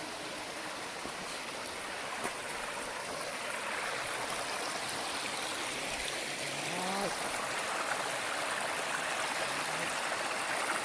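Mountain stream water rushing and splashing over rocks, a steady dense hiss that grows slightly louder over the stretch.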